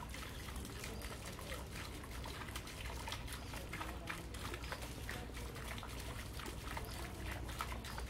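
Small fountain trickling and splashing steadily into a pond, a continuous patter of falling water.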